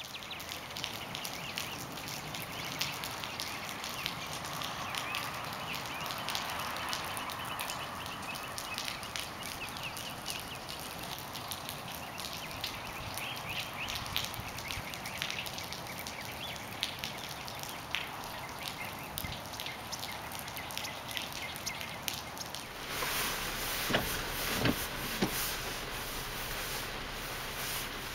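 Rain falling outdoors: a steady hiss with scattered light taps of drops. About 23 s in it changes to rain and hail pellets ticking and tapping on a car's windshield and body, heard from inside the car.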